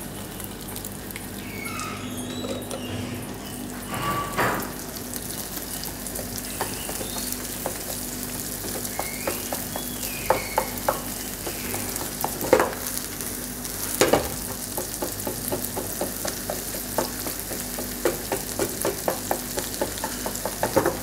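Cabbage, egg and diced carrot sizzling in a nonstick frying pan over a gas flame. A slotted spatula scrapes and taps against the pan as the food is stirred, the taps coming more often in the second half.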